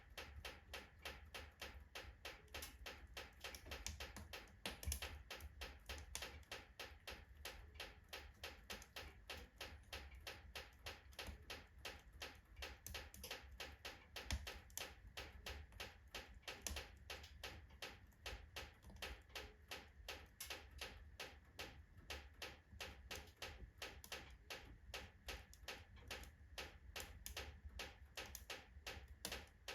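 Oak logs burning in a fireplace, crackling faintly with a dense run of small ticks and pops, several a second, over a steady low rumble.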